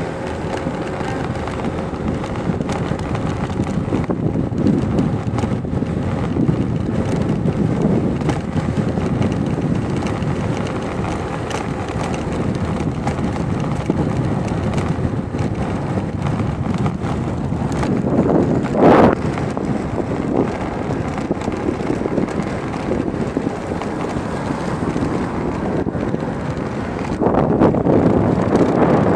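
Wind buffeting the phone's microphone over a steady rumble of traffic, with a louder swell about two-thirds of the way through and again near the end.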